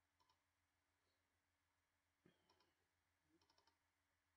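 Near silence, broken by a few faint clicks of a computer mouse and keyboard: a single click a little over halfway through, then a quick run of key taps near the end.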